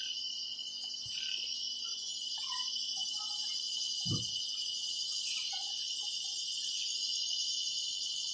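Steady high-pitched chirring of crickets, with a single soft thump about four seconds in.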